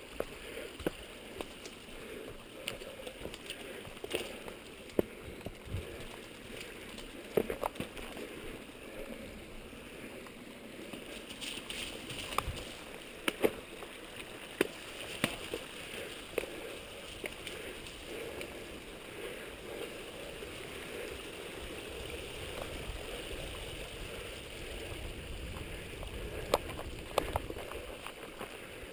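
Mountain bike rolling along a dirt singletrack: a steady rush of tyre and wind noise, broken by frequent irregular sharp clicks and knocks as the bike jolts over bumps.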